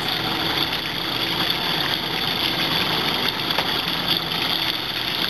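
Fishing boat's engine running steadily under a constant hiss of wind and water.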